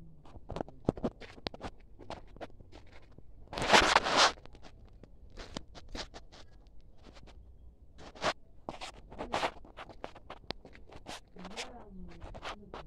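Irregular scratching and clicking from the phone being handled and rubbed as it is moved, with a louder rustle about four seconds in. No engine can be heard running.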